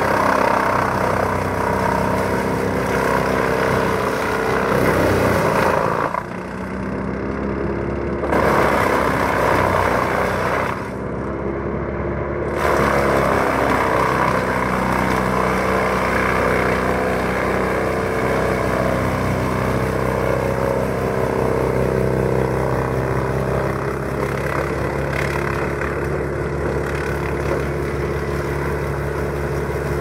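Large Model 1890 woodchipper of about 200 hp, its engine running steadily at working speed while it chews branches and foliage fed into the infeed chute. The chipping comes in loud spells, first about six seconds long, then about two and a half seconds, then continuous from about twelve seconds in.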